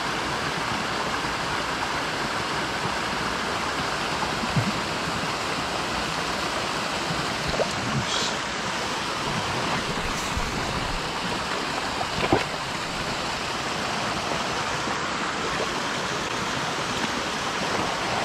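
Shallow mountain stream running over rocks, a steady rush of water. Two small knocks break through it, about four seconds in and again about twelve seconds in.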